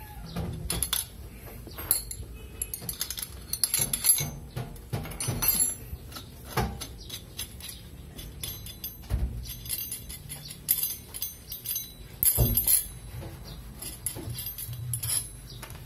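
Irregular metallic clinks, clicks and knocks of hand tools and steel shock-absorber parts being handled as a motorcycle rear shock is taken out of a spring compressor, with a few louder knocks.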